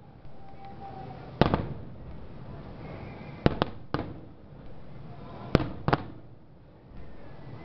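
Fireworks display exploding: about half a dozen sharp bangs a second or two apart, some in quick pairs, each trailing off in a short rumble.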